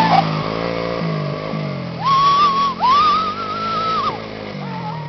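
ATV motors running, their pitch rising and falling as the riders change speed. A high, wavering tone sounds twice between about two and four seconds in.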